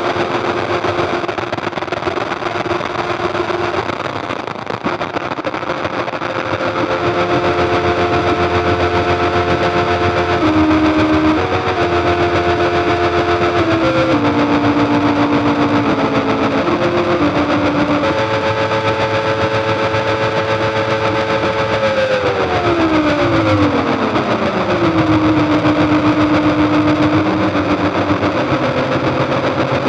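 Experimental noise drone from a Roland V-Synth XT, fed by the iPad app CP 1919 and modulated from a Haken Continuum Fingerboard: a dense noise wash with several held tones that shift in pitch in steps, then slide down together about three-quarters of the way through and settle on one lower tone.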